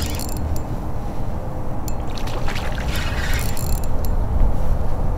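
Fast, high river water rushing steadily past a kayak, a continuous low rumble with a few faint light clicks about halfway through.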